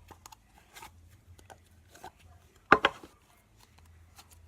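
Light handling noises: scattered soft clicks and rustles as a slime container is handled, with one louder short sound a little past halfway.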